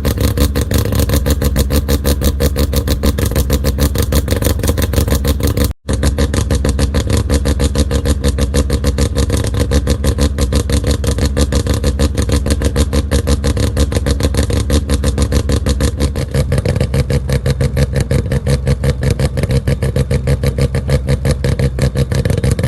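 An engine running steadily with a fast, even pulse and a strong low hum. It cuts out for an instant about six seconds in, and the low end shifts about sixteen seconds in.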